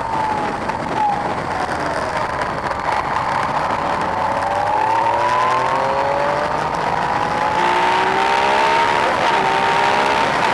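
Yamaha MT-09's three-cylinder engine under way, easing off briefly near the start, then pulling up through the revs with one gear change about two-thirds of the way through. Wind noise on the microphone runs under it.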